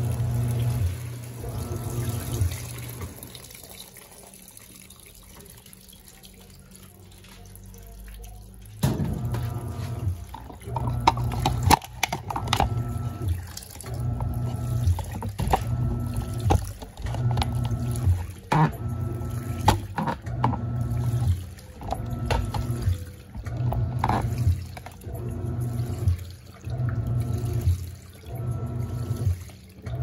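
Panasonic 14 kg top-loading washing machine agitating a soaked load of rugs and cloths: the motor hums and the water sloshes in strokes roughly once a second as the wash action reverses. The strokes stop a few seconds in and start again after about six seconds.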